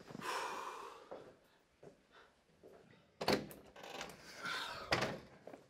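A front door being unlatched and opened: a sharp click a little past halfway, a rustle, then a knock near the end, after a short breathy sound in the first second.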